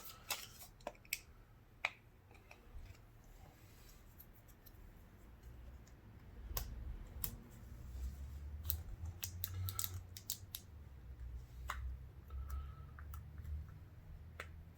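Scattered faint clicks and light scrapes of a plastic pry tool working around a Samsung Galaxy A50's plastic frame, with a low handling rumble in the second half.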